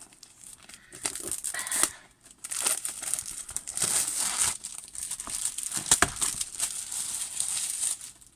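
Packaging of a diamond painting kit crinkling and rustling as it is handled and opened, with some tearing and small clicks, in uneven spells.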